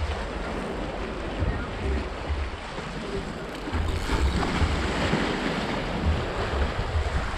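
Sea waves washing against the rocks of a jetty, with wind buffeting the microphone in low rumbles; the wash swells louder about four seconds in.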